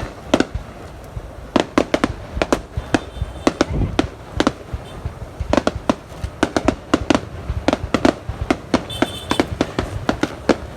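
Fireworks display: a rapid, irregular string of sharp bangs and cracks from bursting shells, many close together.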